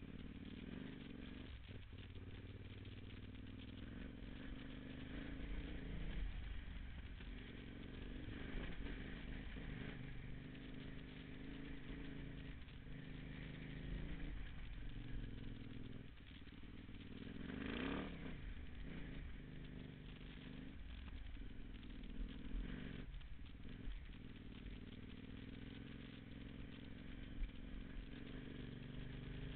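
Off-road motorcycle engine running at low speed as the bike is ridden over a rough dirt and cobblestone track. The engine note rises and falls repeatedly with the throttle, most plainly about eighteen seconds in.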